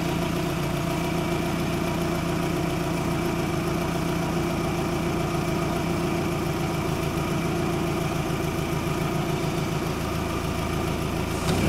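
A 1998 Toyota Camry's 2.2-litre four-cylinder engine idling steadily, running up to operating temperature to bleed air out of its freshly refilled cooling system.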